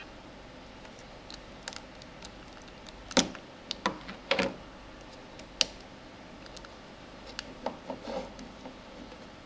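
Handling noise from a small plastic pocket speaker and an iPod being moved about on a wooden desk: scattered clicks and light knocks, the sharpest about three, four and a half, and five and a half seconds in, over a faint hiss.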